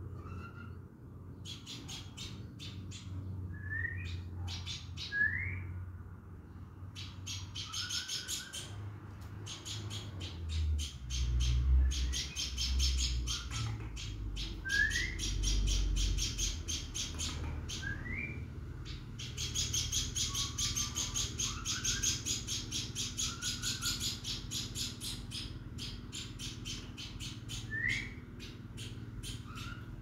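Small songbird chattering: fast runs of high, rattling notes in bursts lasting several seconds, with short rising chirps between them. A low rumble sits underneath around the middle.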